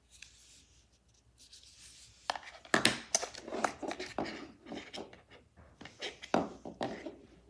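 Handling noises: an irregular run of clicks, taps and rubbing as small hard objects are moved about by hand, starting faint and growing busier about two seconds in.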